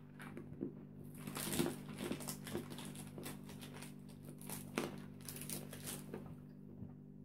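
Scattered crinkles and crunches of a snack packet being handled and hard dry-roasted peanuts being chewed, thinning out near the end, over a steady low hum.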